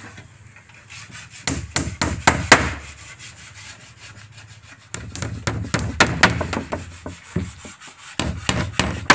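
Claw hammer tapping small nails into a thin wooden strip on a teak door, in three runs of quick light taps.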